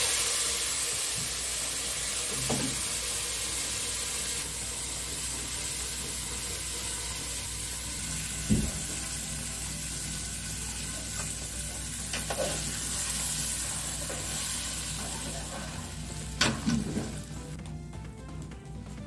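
Blended tomato hitting the hot oil and toasted fideo noodles in a pot, sizzling loudly and easing off gradually as it cooks down. Two sharp knocks, one about halfway through and one near the end.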